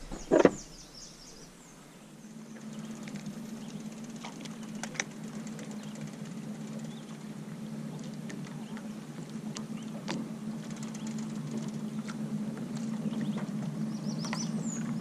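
A boat motor running steadily as a low hum that slowly grows louder. A single thump comes about half a second in, with light ticks and a few bird chirps around it.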